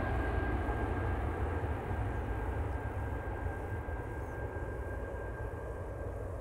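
Antonov An-12's four Ivchenko AI-20 turboprop engines running as the aircraft flies away: a low rumble with a steady high whine, slowly fading.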